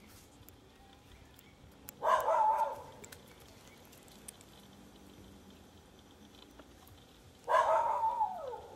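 Two drawn-out animal calls, each just under a second, about two seconds in and again near the end; the second call falls in pitch as it ends.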